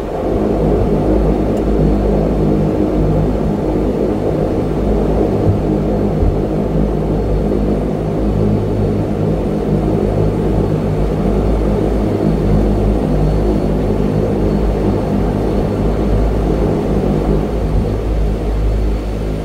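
Twin turboprop engines and propellers of a de Havilland Canada Dash 8-100 running at low taxi power, a steady drone with several humming tones over a deep rumble.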